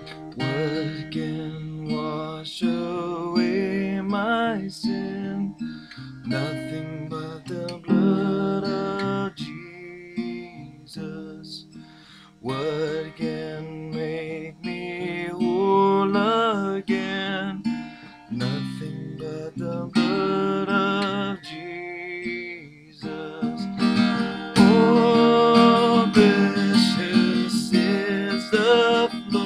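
Music led by strummed acoustic guitar, getting louder near the end.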